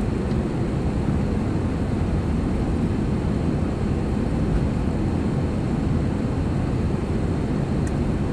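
Airliner cabin noise: the steady, even noise of the jet engines and airflow heard from inside the passenger cabin, heaviest in the low range.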